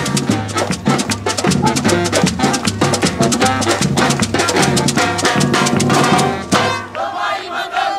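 Street band music: drums and percussion play a fast dance rhythm over deep bass notes, with brass. The drumming thins out and the music drops back for the last second or so.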